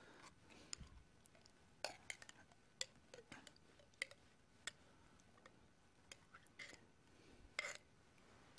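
Near silence with scattered faint clicks and taps from a jar and a spoon knocking against a glass mixing bowl as thick cheese sauce is poured and scraped out.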